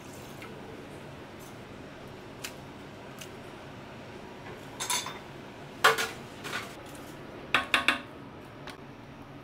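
Dishes and metal utensils clinking against each other a handful of times: a couple of light clinks about five seconds in, a sharp loud one just before six seconds, and a quick ringing cluster near eight seconds, over a steady low hum.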